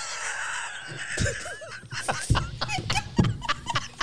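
People laughing hard, in quick breathy bursts of about five a second, with high squealing rises in pitch, building to the loudest peak about three seconds in.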